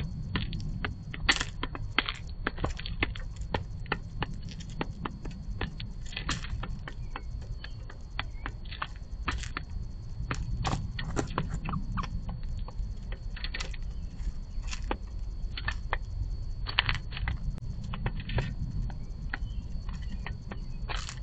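Irregular sharp clicks and taps, several a second with a few louder ones, of birds pecking seed from a cardboard box feeder, over a steady low rumble.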